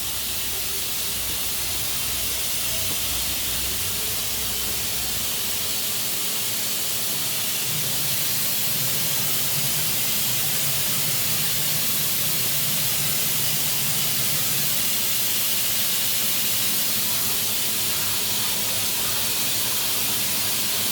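Makino F5 high-speed vertical machining center running: a steady, even hiss, with a low hum underneath that drops away about six seconds in.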